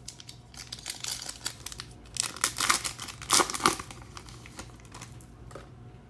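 A trading card pack's wrapper being torn open and crumpled by hand, crinkling in short bursts that are loudest around the middle.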